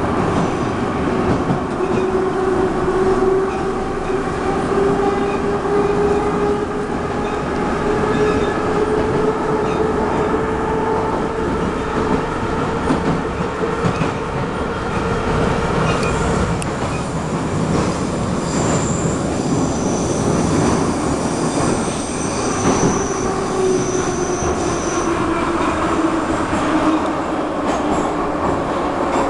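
Moscow Metro train heard from inside the carriage, running through the tunnel with a steady roar of wheels on rails. A traction-motor whine climbs in pitch over the first ten seconds, then falls as the train slows into a station near the end. A thin high squeal joins for a few seconds past the middle.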